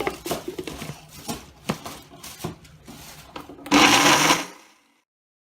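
Food processor chopping soaked chickpeas: irregular clattering and clicking of the chickpeas hitting the blade and bowl, then a loud burst of the motor at full speed for under a second near the end before it cuts off suddenly.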